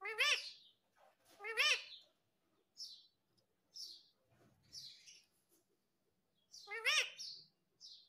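Indian ringneck parakeet calling: three loud drawn-out calls, each rising and falling in pitch, at the start, about a second and a half in, and near the end, with softer short high chirps between them.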